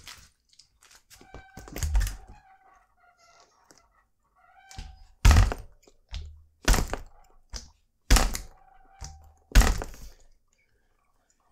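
Mountain bike jolted on the ground for a chain-noise test: about five dull thuds with faint metallic ringing, and no chain rattle, the chain held by a newly fitted c.guide aluminium chain tensioner.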